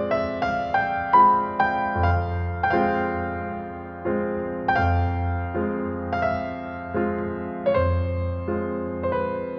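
Slow, gentle piano music: single notes struck one after another in a rising and falling line, over a low bass note struck about every three seconds.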